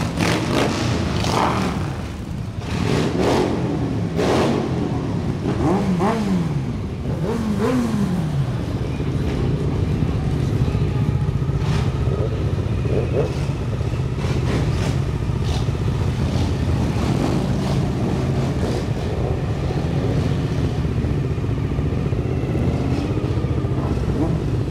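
A stream of cruiser and sport motorcycles riding past one after another with a steady low engine rumble. In the first several seconds engines rev and slide up and down in pitch as bikes pass close by.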